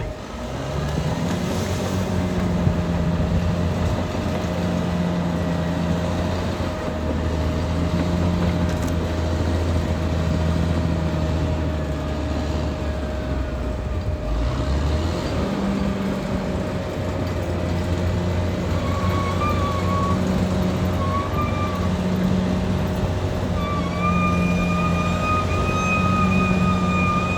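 Caterpillar D6R XL bulldozer's diesel engine running under work, its note repeatedly swelling and easing every couple of seconds.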